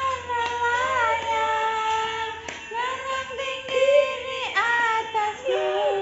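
A child singing long, drawn-out notes that bend in pitch, in two phrases with a short break about halfway through.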